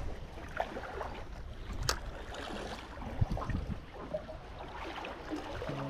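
Steady wash of wind and sea, with a few small clicks and one sharp click about two seconds in. Background music comes in near the end.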